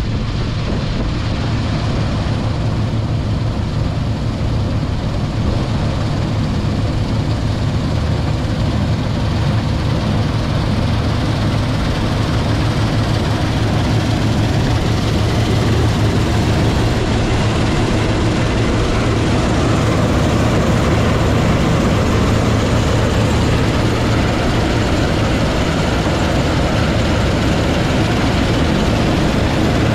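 Large diesel farm machine engine running steadily under load, a deep hum that grows slightly louder through the first part and then holds.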